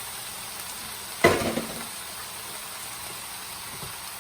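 Chicken and mushroom mixture sizzling steadily in a frying pan, with one sharp, loud clank about a second in.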